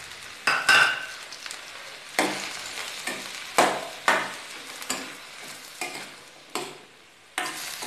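Onions, tomatoes and cashews sizzling in a small steel kadai while a steel spatula stirs them, scraping and knocking against the pan roughly once a second. The first strokes ring briefly.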